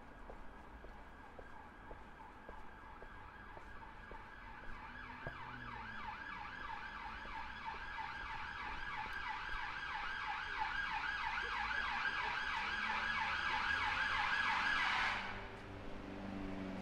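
Emergency vehicle siren sweeping rapidly up and down in a fast yelp, growing steadily louder as it approaches, then cutting off suddenly near the end. A vehicle engine is heard after it stops.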